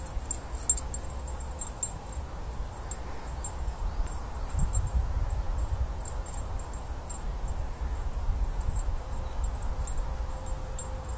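Wind buffeting the microphone as a steady low rumble, a little stronger from about four seconds in, with faint scattered high ticks.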